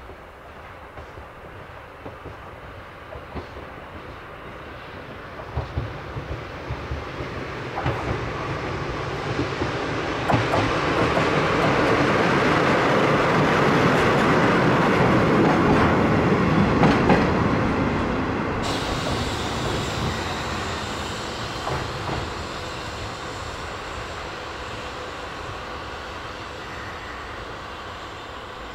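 A DD51 diesel-hydraulic locomotive hauling a single hopper wagon passes by: twin diesel engines running and wheels clicking over rail joints. The sound builds to a loud peak near the middle and then fades as the train moves away.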